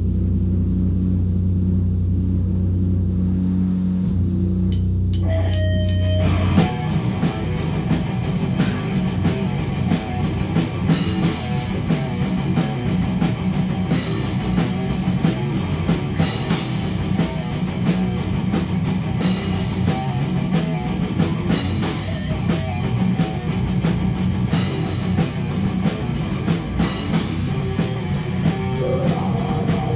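Rock band rehearsing live in a small room: a steady low drone for the first six seconds, then the full band comes in with drum kit and guitar playing loud heavy rock.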